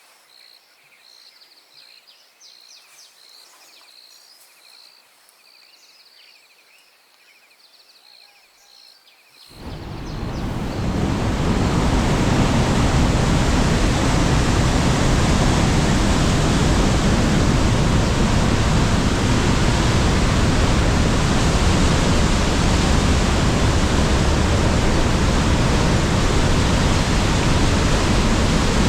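Faint, high repeated chirping at first. Then, about ten seconds in, the loud, steady rush of the Kapruner Ache's cascades and waterfall fades up and holds.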